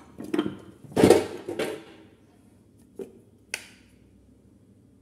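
Kitchen clatter of spice containers and utensils: a few short knocks and clinks, the loudest about a second in, as spices are added to a marinade.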